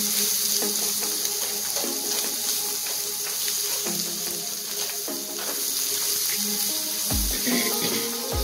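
Egg, onion and tomato scramble sizzling steadily in a non-stick frying pan as a spatula stirs and scrapes through it, over light background music.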